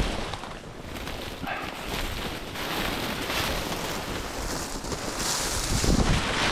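Wind gusting across the microphone, a steady rushing noise with low rumbles, growing louder and hissier about five seconds in.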